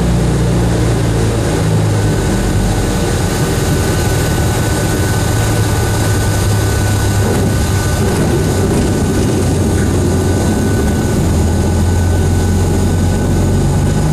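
Van's RV-8's piston engine and propeller running steadily, heard from inside the cockpit, with its low note shifting slightly a couple of times.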